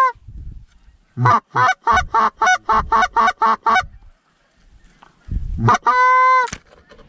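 Canada goose call blown by a hunter: a fast run of about eleven short honks and clucks, about four a second, then after a pause one long, drawn-out honk, calling to circling geese.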